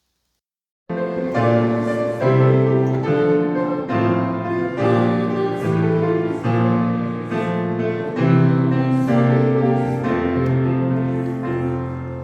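Silence for about a second, then instrumental keyboard music cuts in abruptly: slow chords changing about once a second over long held bass notes, growing softer near the end.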